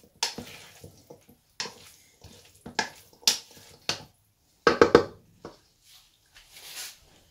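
Wooden spoon stirring and scraping dressed pasta salad in a stainless steel mixing bowl, with irregular knocks of the spoon against the metal. A louder clank with a brief ring of the bowl comes about five seconds in.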